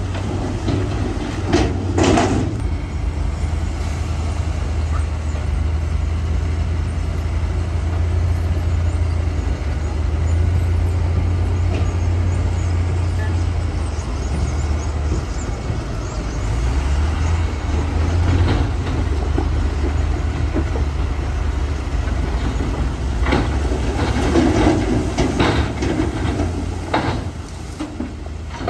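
Heavy diesel earthmoving machinery running with a steady low engine drone, with short louder bursts of noise about two seconds in and again near the end.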